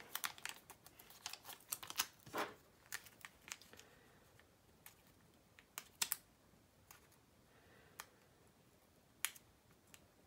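Faint crackling clicks of plastic transfer tape and sticker-sheet masking film being pressed and peeled by hand. The clicks come thick in the first few seconds, then thin out to a few separate ticks.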